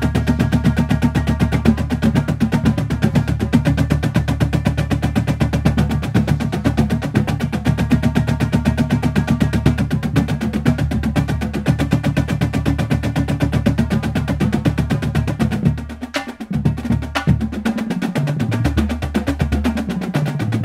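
Marching drumline of snare drums, tenor drums and bass drums playing a loud, fast warm-up exercise together. About three-quarters of the way through, the deep low notes break off and come back only in short hits, while the higher drums keep playing.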